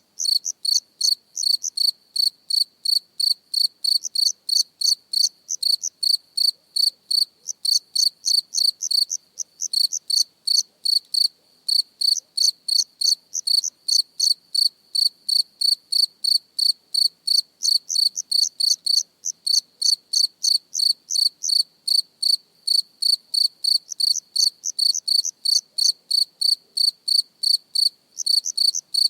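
A single cricket chirping close up: short, high, clear chirps repeated evenly at about three a second, with brief silences between them.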